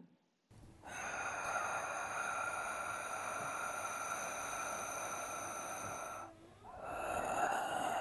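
Ujjayi pranayama throat breathing: one long, steady, hissing breath drawn through a narrowed throat, lasting about six seconds. After a brief break, the next breath begins about seven seconds in.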